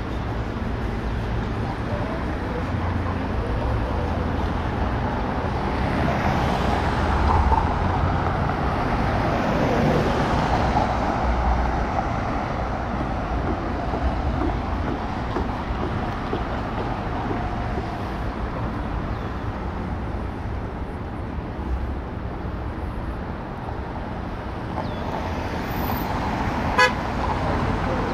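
City street traffic: cars driving past on the bridge roadway in a steady rumble that swells as vehicles go by in the first half. A quick horn toot sounds near the end.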